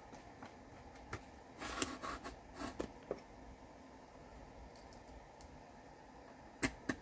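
Faint clicks and scrapes of a hex key driver turning small M2.5 bolts loosely into brass inserts. The clicks come in scattered clusters, with two sharp clicks near the end.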